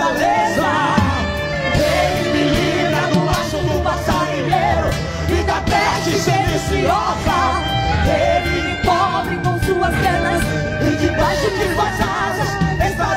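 Male and female voices singing a Portuguese gospel song as a duet over instrumental accompaniment with a steady beat.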